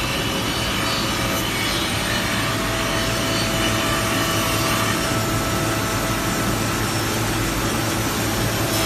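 Industrial drawer sanding and cutting machine running while working wooden drawer parts. It gives a steady, dense grinding hiss over a constant low hum, with faint steady whine tones.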